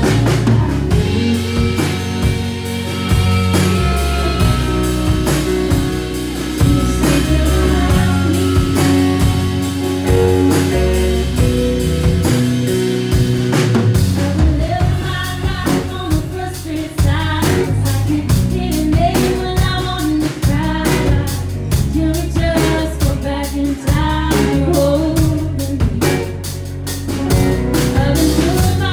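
Live rock-leaning band music: a woman singing over electric guitar, bass and a drum kit, loud and continuous.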